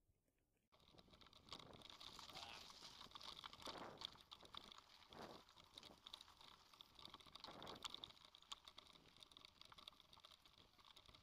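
Faint crunching and rattling of a mountain bike rolling over a gravel dirt track, heard through a camera mounted on the rider or bike: a dense run of small clicks over a steady hiss. It starts abruptly a little under a second in.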